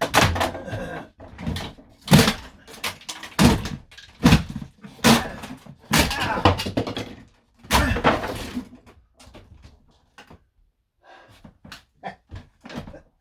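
Interior fittings of an old camper van being wrenched and knocked off by hand: a rapid run of thumps, bangs and cracking for about nine seconds, then a few lighter knocks near the end.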